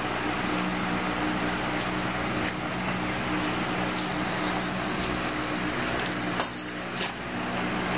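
A steady mechanical hum with a constant low tone, broken by a few short clicks and rustles, the loudest about six and a half seconds in.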